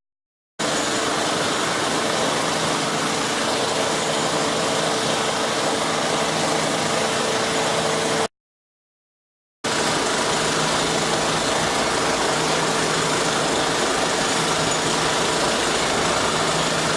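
Steady machinery running with a constant hum and held tones, no knocks or impacts. The sound cuts out completely for about a second around the middle and just at the start.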